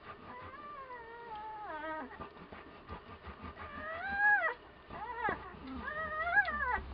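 Week-old komondor puppies whimpering and squealing: a run of high, wavering cries that rise and fall, the loudest about four seconds in.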